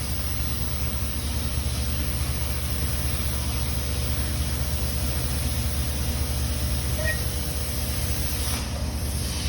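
Flagler buttonpunch power flanger running, its electric motor and forming rolls making a steady hum with an even hiss.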